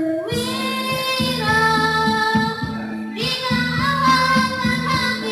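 A girl sings into a microphone over musical accompaniment, holding long sustained notes that step from one pitch to the next.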